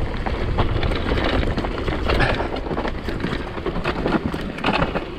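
Mountain bike descending a rough, rocky trail: a steady rumble of wind on the microphone, with the tyres and frame clattering in quick knocks and rattles over the rocks.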